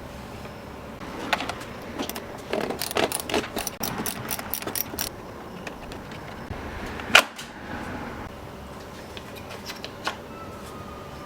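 Small hard parts and hand tools clicking and clattering as a chainsaw is worked on: a quick run of taps for a few seconds, then one sharp click.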